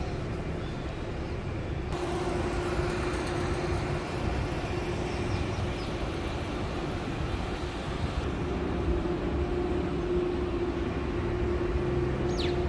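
Steady vehicle rumble and road noise with a steady low hum, changing abruptly twice. A brief falling whistle comes near the end.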